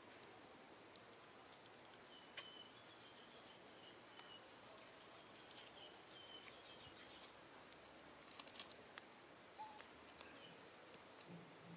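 Near silence: faint outdoor ambience, with a faint high chirping that comes and goes and a few soft ticks and clicks, clustered about eight seconds in.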